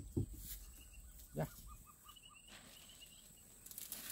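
Quiet field background with birds calling, including a quick run of five short chirps. A dull knock comes just after the start and a brief low sound about a second later. A plastic bag rustles near the end.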